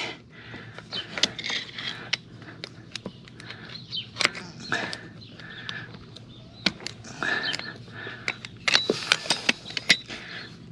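Irregular small metal clicks, taps and scrapes of a screwdriver working a retaining clip onto a riding mower's wheel axle.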